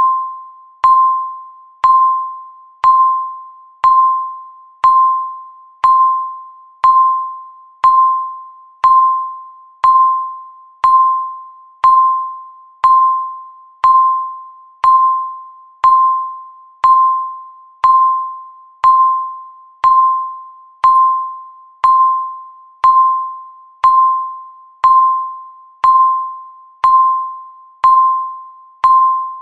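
Electronic countdown-timer beep, one per second: a single tone near 1 kHz that starts sharply and fades away, repeating evenly to mark each passing second.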